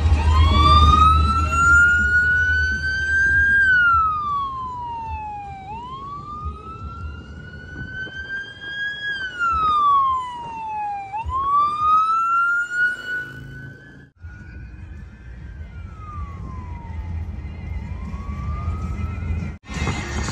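Emergency vehicle siren wailing, its pitch rising slowly and then falling, about every five and a half seconds. It cuts out for a moment about two-thirds of the way through and returns fainter.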